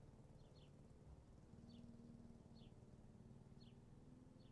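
Near silence: quiet room tone with faint short, high, falling chirps about once a second, and a faint low hum coming in about a second and a half in.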